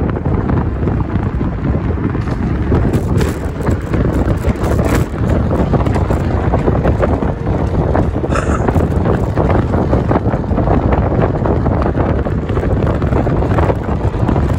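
Wind rushing over the microphone of a moving electric scooter, a loud, steady rumble.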